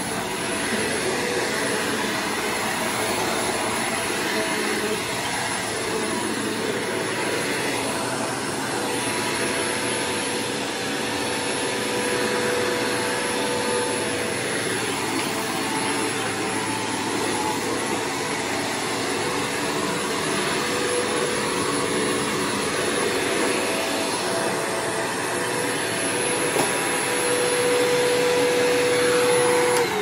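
Bissell PowerForce bagged upright vacuum cleaner running steadily while being pushed across the floor, a constant rushing motor sound with a steady whine, slightly louder near the end.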